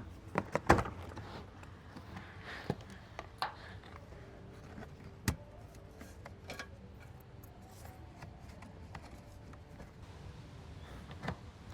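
Scattered sharp clicks and knocks of plastic bumper parts and hand tools as a car's front bumper is pried loose, over a low steady background.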